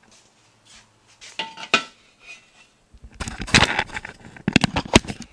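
Irregular knocks and clatter of hard objects being handled, mixed with handling noise from a moving camera. A few scattered knocks come first, then a dense run of loud knocks from about three to five seconds in.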